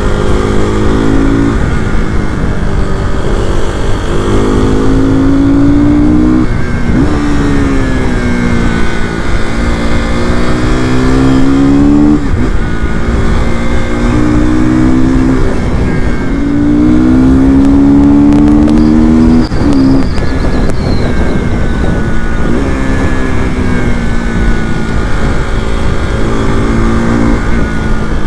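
KTM RC390's single-cylinder engine running under way as the bike is ridden, its pitch climbing and then dropping sharply a few times as the rider works the throttle and gears, over a steady rush of wind noise.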